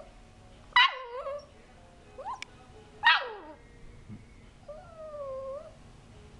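Bird-dog puppy yelping: two sharp cries that drop in pitch, about a second in and again about three seconds in, then a longer, quieter whine near the end.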